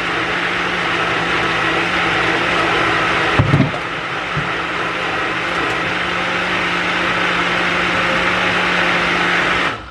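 Countertop electric blender running steadily, puréeing avocado and milk into a smoothie, with a brief knock about three and a half seconds in. The motor cuts off just before the end.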